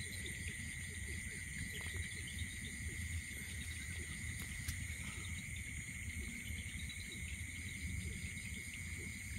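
Steady chorus of night insects such as crickets, shrilling continuously at a couple of high pitches, with a low rumble underneath.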